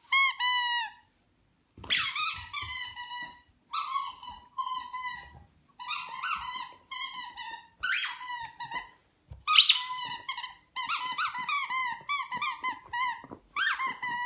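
Squeaky ball toy squeezed in a dog's jaws as it chews, giving a short squeak at the start, then from about two seconds in rapid runs of high squeaks in quick clusters.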